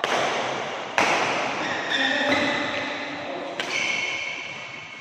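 Badminton rackets striking the shuttlecock in a rally, three sharp hits: one at the start, one about a second later and one near four seconds in, each ringing on in the hall's echo.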